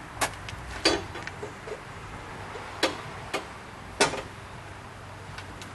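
Sharp metal clicks and knocks, about five spread across a few seconds, as a replacement lawn mower blade and its mounting hardware are handled and seated onto the blade spindle by hand.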